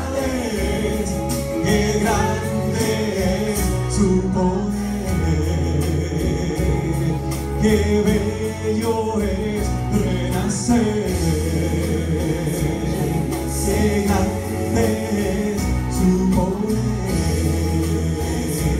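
Gospel music with a steady bass line and held chords, and choir-like backing vocals in a passage without lead lyrics.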